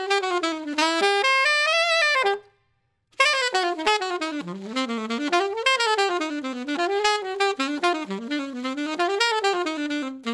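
Alto saxophone playing a fast bebop line with bebop articulation, a quick run of short notes mixing tongued and slurred notes, climbing and falling in pitch. It breaks off briefly about two and a half seconds in, then carries on until it stops near the end.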